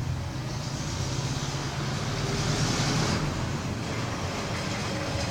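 Road traffic going by: a steady low rumble of vehicle engines, with a higher hiss that builds and then fades out about three seconds in.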